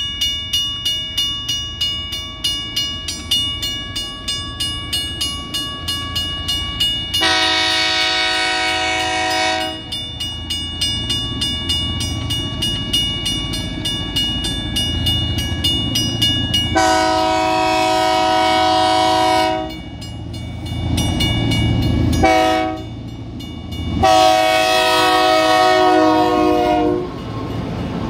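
Grade-crossing bell ringing with rapid, even strokes while a Grand Trunk Western diesel freight locomotive approaches and sounds its horn for the crossing: two long blasts, a short one, then a long one. The locomotive's rumble grows louder, and it is passing close by at the very end.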